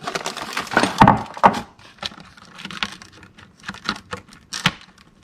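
Graham crackers being handled and laid into a plastic container: a rustle with a knock about a second in, then a run of light clicks and taps.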